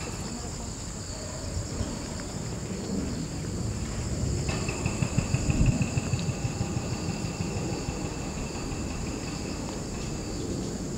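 Insects chirring steadily at a high pitch, over a low rumbling noise that swells about midway. A second thin, high insect note joins about four and a half seconds in.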